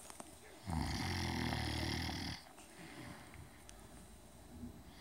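A sleeper snoring: one long snore of about a second and a half, starting under a second in, then a quieter pause.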